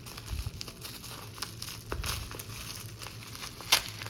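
Packaging crinkling and tearing as a well-packed parcel is worked open by hand, with scattered crackles and one sharp snap near the end.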